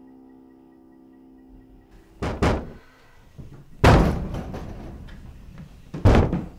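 A sustained, droning music chord fades out, then a series of loud, heavy thuds follows. Two come close together about two seconds in, the loudest about four seconds in, and another near the end.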